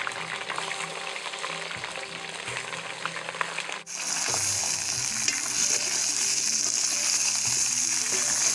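Oxtail pieces sizzling as they sear in smoking-hot oil in a cast-iron pan over a wood fire, while two wooden spoons turn them. The sizzle gets louder and brighter about four seconds in.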